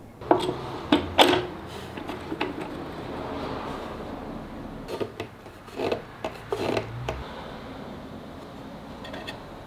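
Handling noise from a wooden drawer runner being set against a nightstand frame: a few sharp knocks and taps of wood on wood, three in the first second and a half and a few more about halfway through.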